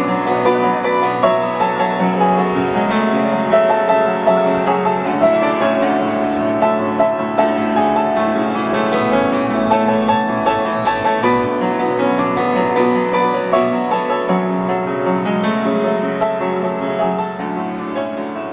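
Instrumental piano music, fading down over the last few seconds.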